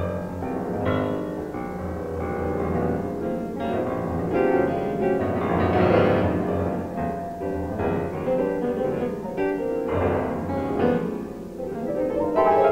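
Grand piano played solo in a dense modern style, with many notes ringing together. It grows loudest about halfway through and surges again near the end.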